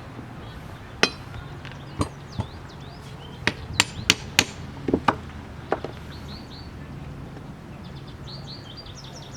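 A run of sharp taps and knocks, about ten in a few seconds and quickest in the middle, from hand work on a power steering pump being taken apart. Birds chirp in short repeated notes near the end.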